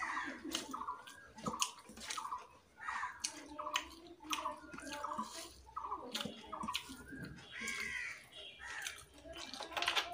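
Wet squishing and clicking of fingers mixing rice with chicken curry on a steel plate, with chewing.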